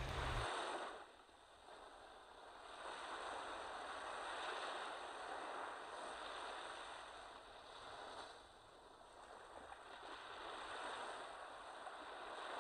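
Waves washing onto a beach: a soft hiss that swells and fades every few seconds.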